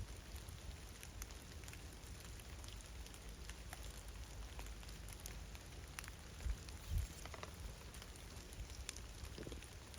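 Steady rain falling, a soft hiss with many small scattered drop ticks. Two brief low thumps come about six and a half and seven seconds in.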